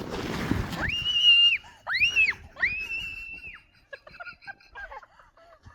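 A young child squealing: three long, high-pitched squeals, then softer babbling noises.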